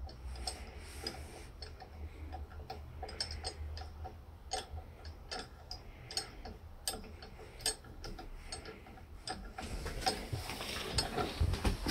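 Light, irregular metal clicks and ticks from a nut being spun by hand on the threaded stud of a steel step clamp, the clamp clinking against its step block.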